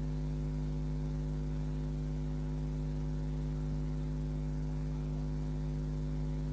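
Steady electrical hum, a low buzz with several fixed overtones that does not change.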